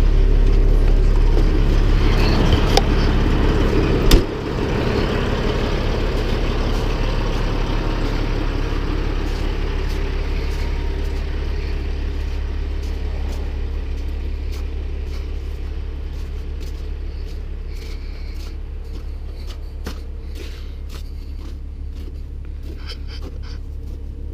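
Logging truck's diesel engine idling steadily, with one sharp bang about four seconds in; after it the engine sound slowly fades.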